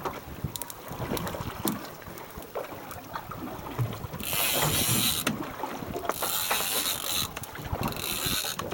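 On-deck noise of a fishing boat at sea: scattered knocks and clicks, with three bursts of hissing noise, each about a second long, in the second half.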